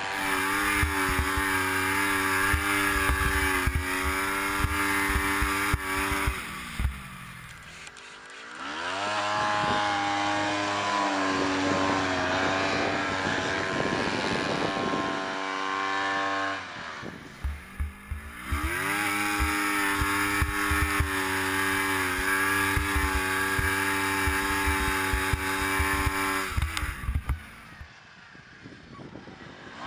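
2008 Yamaha Phazer MTX snowmobile's four-stroke twin engine running hard in deep powder. Three times, about ten seconds apart, its pitch and level drop away as the throttle comes off, then climb again as it is opened up.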